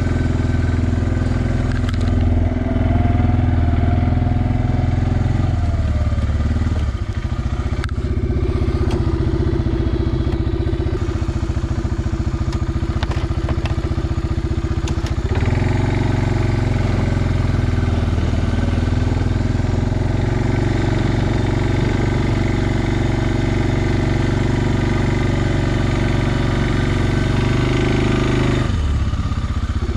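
Suzuki KingQuad 400 ASi ATV's single-cylinder engine running as the quad is driven pushing a front-mounted snow plow blade. The engine note shifts a few times as the speed changes, about seven seconds in, about halfway through and near the end.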